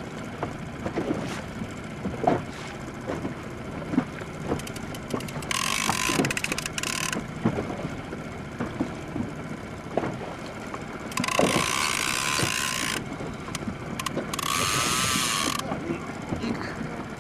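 Big-game fishing reel under heavy load from a hooked fish. Scattered clicks and knocks come from the reel and rod as the line is worked, broken three times by the drag buzzing for a second or two as the fish pulls line off against it.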